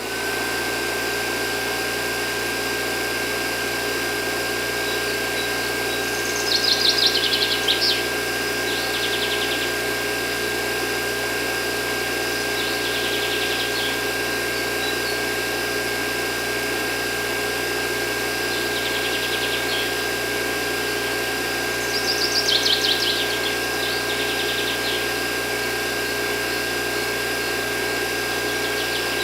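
A small electric motor running steadily with an even hum and a constant whine. Several short bursts of bird chirping come over it at intervals.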